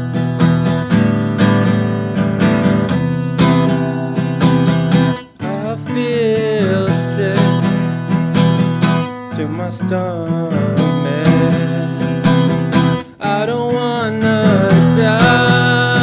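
Steel-string acoustic guitar strummed in a steady rhythm, with two brief breaks about five and thirteen seconds in. A man's singing voice comes in over it about six seconds in.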